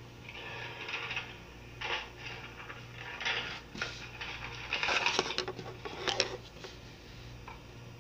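Irregular light clattering and rustling of things being handled on a table, loudest about five to six seconds in, over a faint low hum that pulses on and off about once a second.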